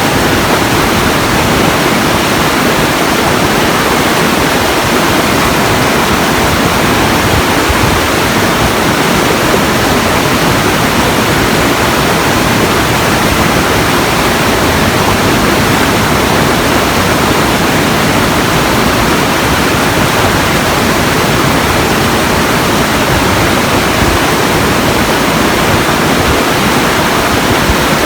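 Steady, unbroken rushing noise, loud and even from low to high pitch, with no single sounds standing out.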